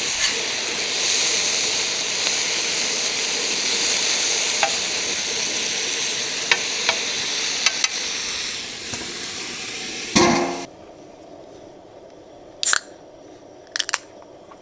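Skewers and potatoes sizzling on a hot grill, a steady hiss with a few light clicks. About ten seconds in there is a clatter and the sizzling stops abruptly, followed by a couple of sharp clicks.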